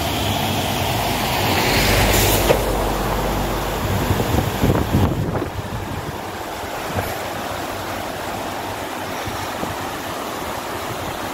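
Swollen, muddy floodwater rushing steadily under a bridge. A low rumble runs under it for the first half and fades out about five seconds in, with a few light knocks.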